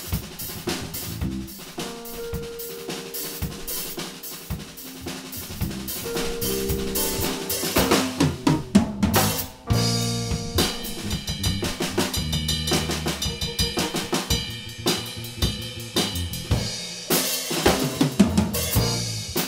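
A live band playing an instrumental piece: a drum kit with kick, snare and hi-hat to the fore, alongside held keyboard and electric guitar notes. The drums get busier and louder about eight seconds in.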